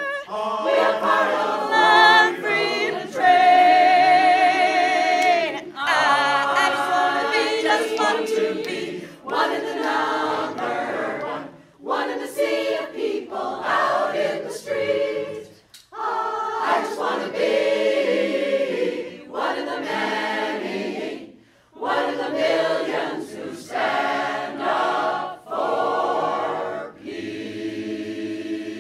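Mixed choir of men and women singing a cappella, in phrases broken by short breaths, ending on a held chord near the end.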